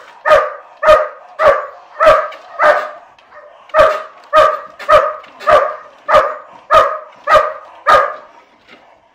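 Large dog barking repeatedly at a decoy in a padded bite suit, about a dozen loud barks at roughly two a second, with a short pause about three seconds in.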